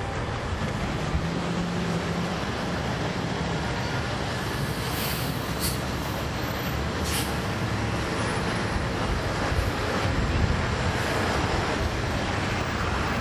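Interior sound of a 2009 NABI 40-SFW transit bus, heard from the rear seats: its Caterpillar C13 ACERT diesel engine and ZF Ecomat automatic transmission running steadily, with a few short hisses about five and seven seconds in.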